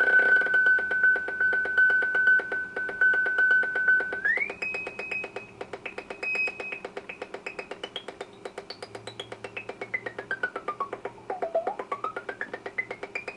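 DIY Eurorack synth module, programmed as two oscillators into a filter, making a rapid pulsing electronic buzz with a high whistling tone over it. The tone holds steady, jumps up about four seconds in, then sweeps up, dives low and climbs back near the end.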